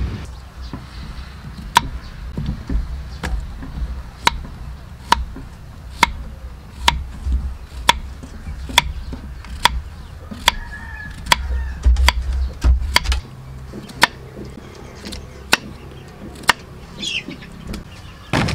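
Kitchen knife chopping white radish on a wooden chopping board: sharp knocks of the blade against the wood, about one a second.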